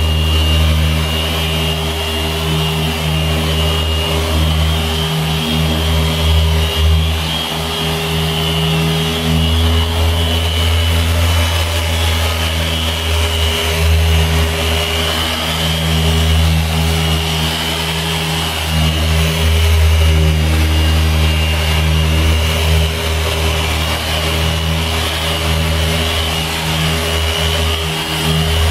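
Handheld machine polisher with a foam pad running steadily against a car's door panel, a motor hum and whine that swells and dips slightly as the pad is worked back and forth, up and down and diagonally across the paint.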